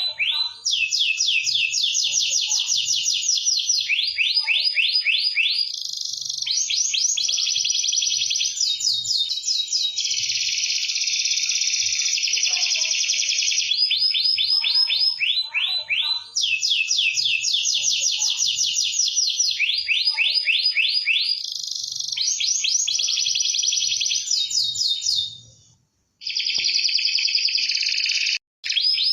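Canary singing a long, continuous song of rapid high trills, switching from one trill phrase to the next every second or two. The song breaks off briefly twice near the end.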